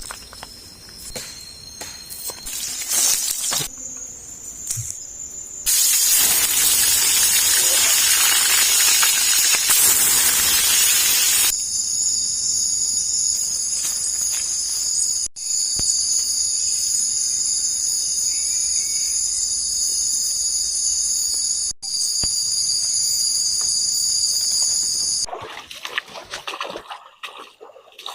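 A loud, even rushing hiss for about six seconds. It is followed by a steady, shrill insect chorus of several high-pitched tones held level, which drops out twice and then stops suddenly near the end.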